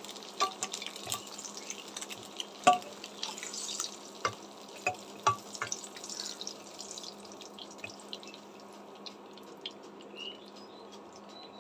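Hot oil sizzling and crackling in a kadai as fried boiled eggs are lifted out with a silicone spatula, with scattered sharp pops and knocks. The loudest comes about two and a half seconds in. The crackle thins out toward the end as the pan empties.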